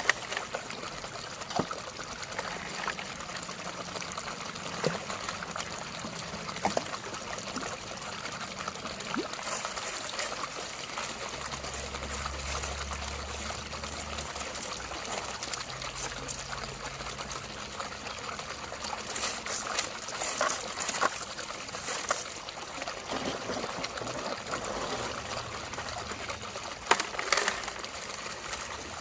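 Water trickling and splashing steadily, with a few sharp clicks and knocks scattered through it.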